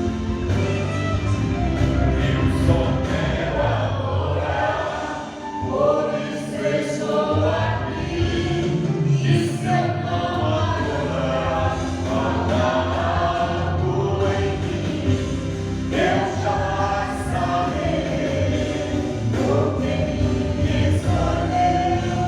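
Portuguese gospel praise song sung by a group of voices over instrumental accompaniment, with a brief dip in loudness about five seconds in.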